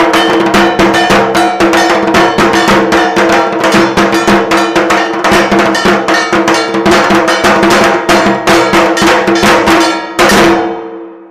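Bell-metal ritual percussion for a Kali puja, struck rapidly and evenly several times a second over a steady ringing tone. One last strike near the end lets it ring out and fade.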